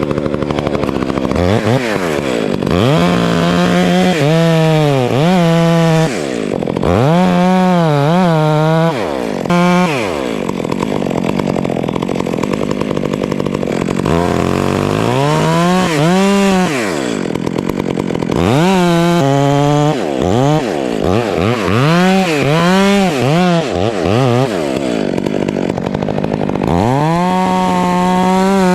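Two-stroke chainsaw cutting into a white fir trunk. The engine revs up to full speed and drops back toward idle about six times, with the pitch sagging and wavering under load in the cuts.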